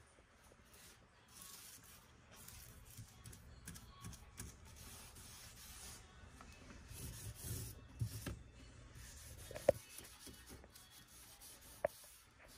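Small paint roller loaded with wet paint being rolled along cabinet wood, a soft rubbing swish with each stroke. A few sharp taps come in the second half, the loudest just under ten seconds in.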